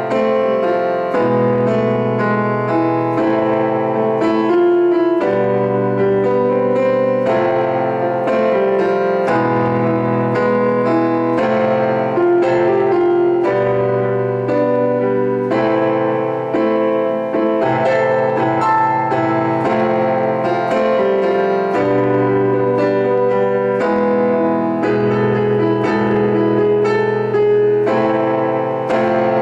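Casio Privia digital piano played without singing: chords struck in a steady rhythm, changing every couple of seconds.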